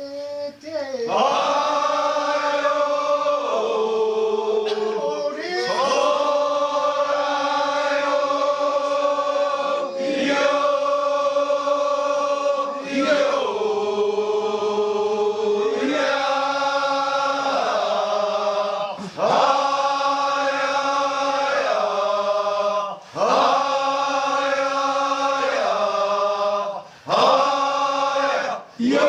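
Kiyari, a traditional Japanese work chant, sung by a group of voices in long drawn-out notes that slide between pitches, with brief breaks for breath every few seconds.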